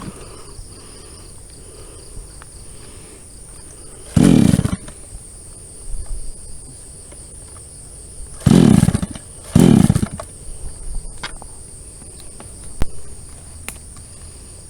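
JCK chainsaw with a 22-inch bar revved in three short blips, about four seconds in and twice more around eight and a half to ten seconds, idling quietly in between. A steady high buzz of crickets runs underneath.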